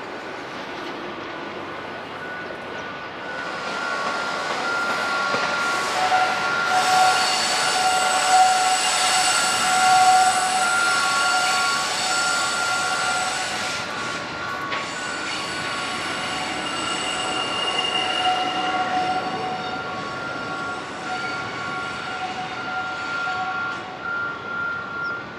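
JR Freight Class EF66 electric locomotive running light, its wheels giving a steady high-pitched squeal of several tones together. The squeal swells a few seconds in and slowly fades toward the end.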